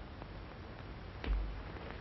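Steady hiss of an old optical film soundtrack, with a faint tick just after the start and a single soft knock a little over a second in.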